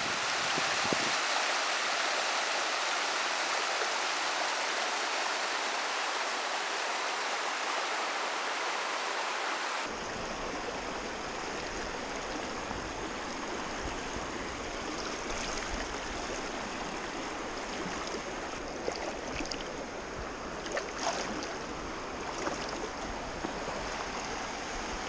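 Flowing river water, a steady rushing noise. About ten seconds in it cuts to a second take of running water, with a few small clicks and faint steady high tones over it.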